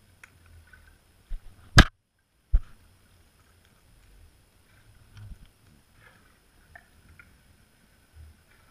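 Muffled underwater sound heard through a camera's waterproof housing: a faint low rumble with scattered small ticks, and a sharp knock a little under two seconds in, followed by a second, smaller knock.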